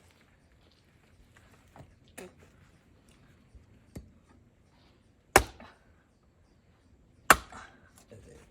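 Axe blows splitting oak firewood: two sharp, loud strikes about two seconds apart in the second half, after a few lighter knocks.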